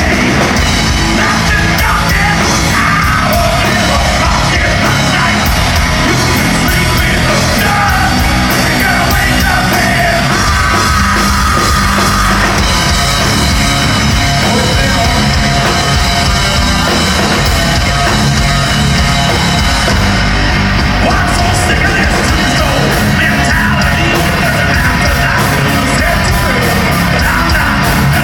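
Loud heavy rock music with yelled, shouted vocals.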